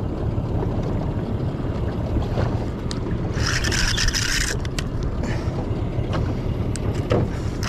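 Spinning fishing reel whirring in a short burst of about a second while a heavy fish is wound in, with another starting right at the end. Under it is a steady rumble of wind and water against the boat.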